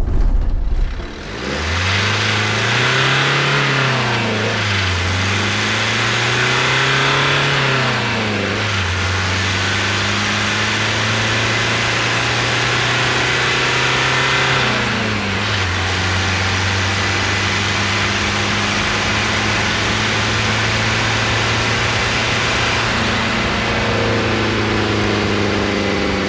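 Renault Master III van's diesel engine driving off: the revs climb and fall twice as it pulls through the first gears, then hold steady at cruise, with a further drop in revs at an upshift about fifteen seconds in. A steady hiss runs under the engine throughout.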